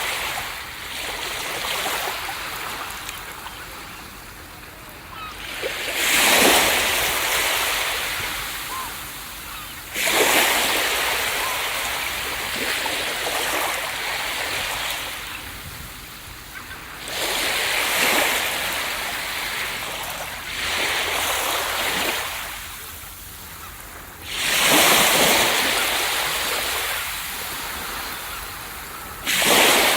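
Ocean surf: waves breaking on a beach one after another, about five in all, each a rush of noise that swells quickly and washes out over a few seconds.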